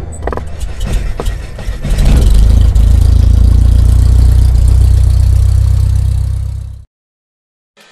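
Logo-intro sound effect: a few sharp hits, then a loud, deep rumbling drone that swells about two seconds in, holds, and cuts off abruptly, leaving silence near the end.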